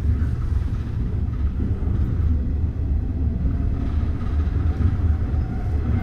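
JR 103 series electric commuter train running between stations: a steady low rumble of wheels and running gear on the track.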